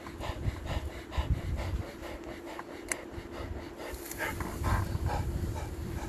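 Cheetah panting hard in a quick, even run of short breaths, recovering after a full-speed chase and kill.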